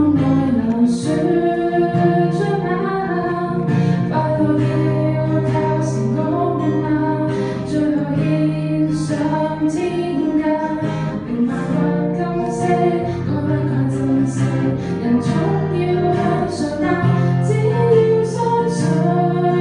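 A woman singing a Cantonese pop ballad live, accompanying herself on a strummed acoustic guitar.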